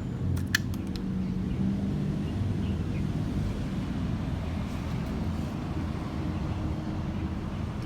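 A steady low mechanical hum, like a running engine, with a few light clicks about half a second in.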